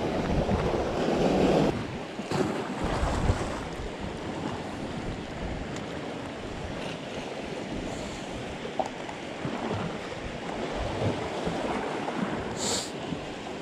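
Wind buffeting the camera microphone over the sea washing against the rocks, a steady rushing noise that is stronger for the first couple of seconds. A short high hiss comes near the end.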